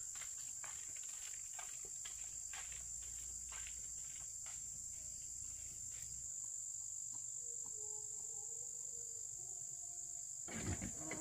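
Steady, high-pitched chorus of insects in a continuous unbroken drone, with faint scattered clicks during the first half.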